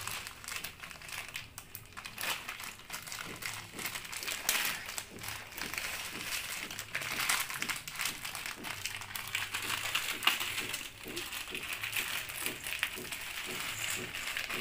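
Plastic instant-noodle packets crinkling and crackling as hands squeeze and handle them and their seasoning sachets, an irregular run of small crackles.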